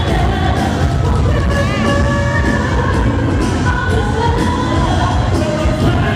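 Live freestyle pop music played loud over a hall's sound system, with a sung vocal line over a heavy, steady beat and crowd noise underneath.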